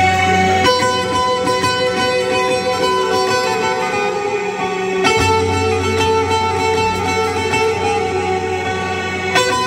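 Saz, the Azerbaijani long-necked lute, playing a lyrical melody over a low held accompaniment. The low part drops out under a second in and comes back about five seconds in.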